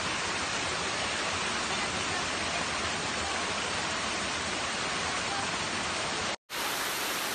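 Waterfall and rocky stream rushing, a constant even hiss of falling water; it cuts out for an instant about six seconds in.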